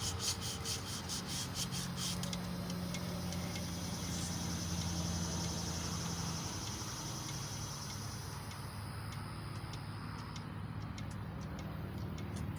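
Emery cloth being rubbed back and forth on a crankshaft journal: quick, even rasping strokes for about two seconds, then a steadier rubbing hiss that fades out. This is surface conditioning of the journals, polishing off surface scratches, over a steady low hum.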